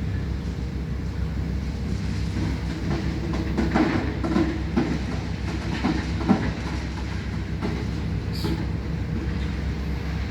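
Heavy machinery running with a steady low rumble while a crane handles scrap metal: metal clanking and rattling for several seconds from about two seconds in, with one sharp clank around six seconds in.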